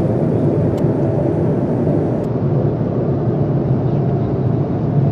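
Airliner cabin noise in cruise: the steady, low rumble of the jet engines and airflow heard from inside the passenger cabin.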